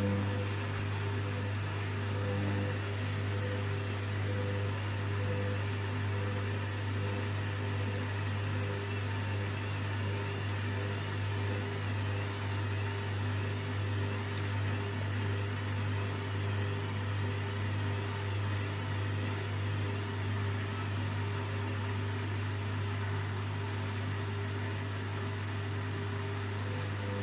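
Hoover washing machine running with a steady low hum that holds level without rising, the drum struggling to get up to spin speed.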